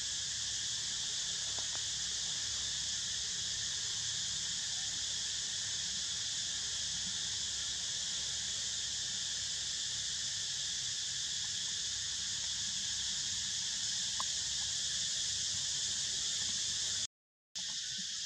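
A steady, high-pitched chorus of insects droning without a break, cutting out completely for about half a second near the end.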